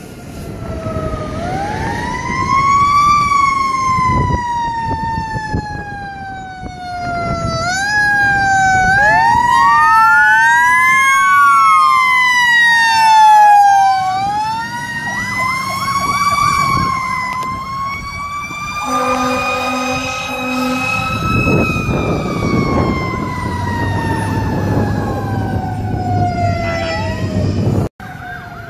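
Fire trucks passing under full siren: a mechanical Q siren winding up and slowly coasting down, overlapped by faster rising and falling electronic wails. About 19 seconds in come two short horn blasts, then loud truck engine noise as the apparatus goes by. The sound cuts off abruptly near the end.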